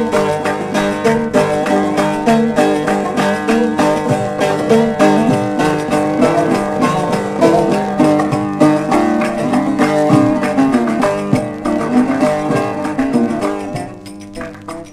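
Instrumental passage of a 1960s Turkish folk song played from a 45 rpm vinyl record: fast plucked bağlama (saz) melody lines, with no singing. The music drops in level near the end.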